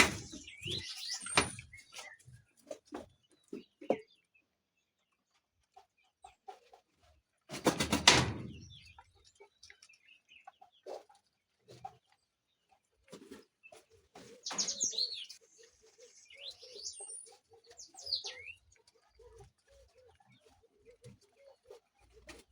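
Farmyard chickens clucking and small birds chirping in short, scattered calls, with a brief loud rustle about eight seconds in and light handling clicks.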